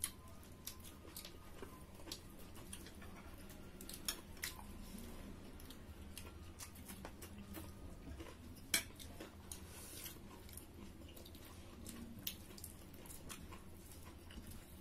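Eating at a table by hand: chewing and mouth sounds, with scattered light clicks and taps of fingers and food against ceramic plates; one sharper click about nine seconds in.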